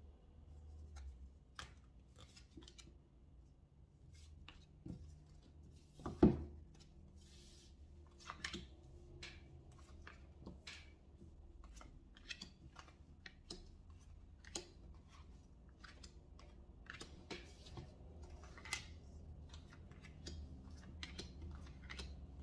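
Tarot cards being drawn from a hand-held deck and laid down one after another on a table: a scattered series of light snaps, slides and taps, with one louder knock about six seconds in.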